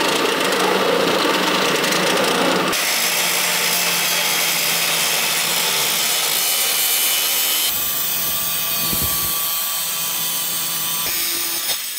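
Power drill boring the 1-inch corner holes through the sheet-steel back of a drawer, with a shop vacuum running alongside. The sound changes abruptly three times.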